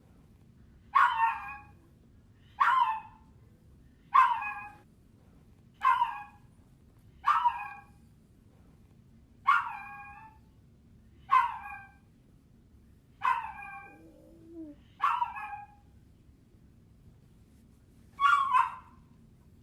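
Puppy crying in short, high-pitched yelps, about ten of them, one every second and a half to two seconds, with a longer pause before the last.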